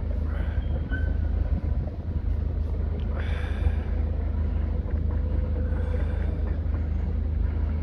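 Steady low rumble of a distant excavator's diesel engine running.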